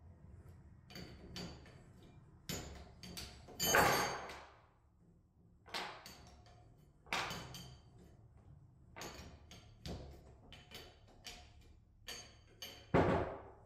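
Wrenches and steel fittings of a hydraulic control valve kit being handled on a tabletop: a string of irregular sharp clinks and knocks, some with a brief metallic ring, the loudest about four seconds in and near the end.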